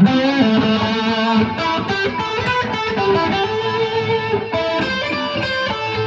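Line 6 Variax Standard modelling guitar on its Les Paul model, played through a Blackstar ID Core digital amp: a lead line of single notes, opening with a held note. The model runs off the guitar's piezo pickups rather than a magnetic pickup, so there is no pickup hiss.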